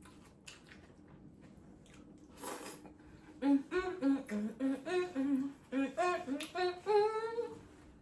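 A person humming a short tune, a quick run of separate notes that starts about three and a half seconds in.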